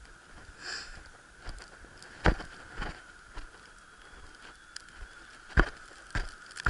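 Footsteps in snow: a few sharp steps about two seconds in and again near the end, irregularly spaced, over a faint steady background noise.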